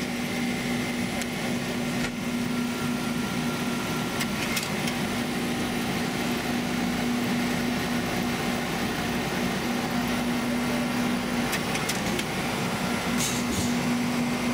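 Under-floor machinery of a standing railcar running with a steady hum and one constant tone, with a few faint clicks.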